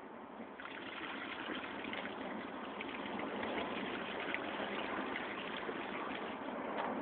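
A small tiled garden fountain's jets starting up about half a second in, then thin streams of water splashing steadily into the basin.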